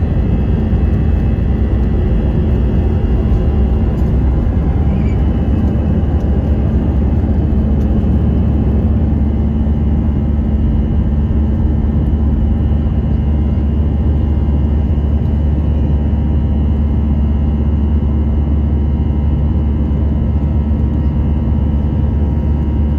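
Cabin noise of an Airbus A320 jet airliner: a loud, steady rumble of engines and airflow heard from inside the cabin, with a few faint steady tones over it.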